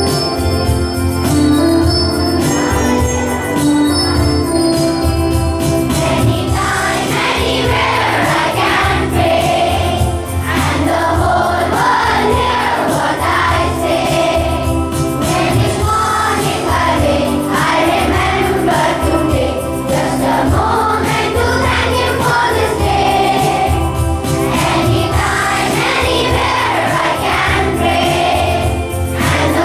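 A group of children singing the morning prayer song with electronic keyboard accompaniment. The keyboard plays alone for about the first six seconds before the voices come in.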